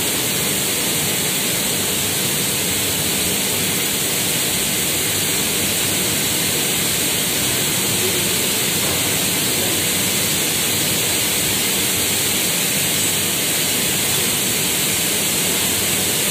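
Steady, even rushing noise, unchanging throughout, as a turntable stretch-film wrapping machine runs, rotating a water tank while film winds onto it.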